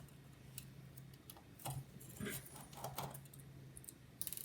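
Faint, scattered light clicks and taps of small screws and precision tools being handled, over a low steady hum, with a brief louder click-and-rustle near the end.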